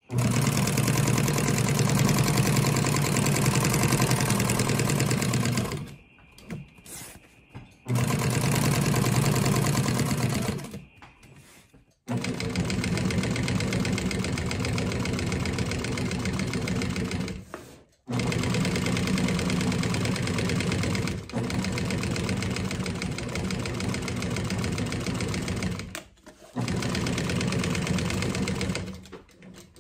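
Industrial flatbed sewing machine stitching black bag panels, running in long stretches of rapid needle strokes. It stops briefly four times as the work is repositioned, then stops near the end.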